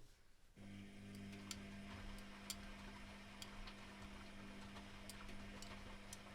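Privileg Classic 30612 washing machine during a 95°C boil wash: a steady machine hum comes on about half a second in and holds, with scattered light ticks over it.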